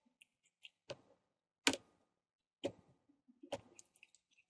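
Small flathead screwdriver clicking against a tiny bezel screw and the laptop's plastic as the screw is worked loose: four sharp, irregular ticks roughly a second apart, with fainter ticks between.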